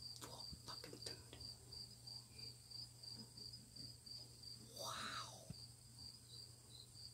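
Faint insect chirping: a steady run of high, short chirps at about three a second. A brief soft whoosh comes about five seconds in, and a few light clicks sound in the first second.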